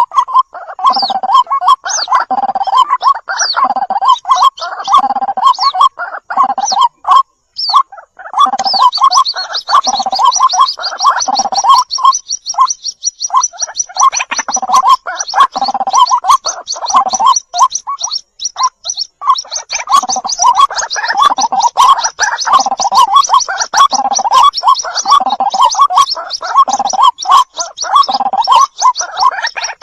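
White-breasted waterhen calling: loud, repeated gurgling croaks in a steady rhythm, with a fast high-pitched trill joining about a third of the way in.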